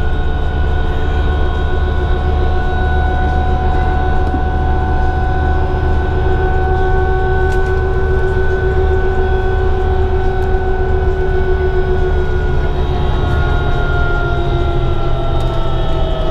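Interior of a 2011 New Flyer D60LFR articulated diesel bus cruising at speed: a steady low rumble from the engine and road, with a steady drivetrain whine that drops slightly in pitch over the last few seconds.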